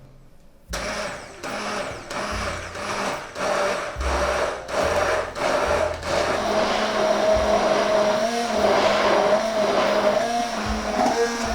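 Electric kitchen blender motor starting abruptly about a second in and running steadily, its pitch wavering slightly. Over the first several seconds the sound pulses roughly once a second.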